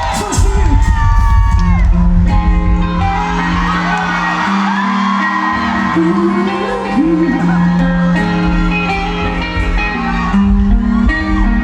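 Live rock band playing, with long held bass notes, heard from within the audience over the crowd's cheers and shouts.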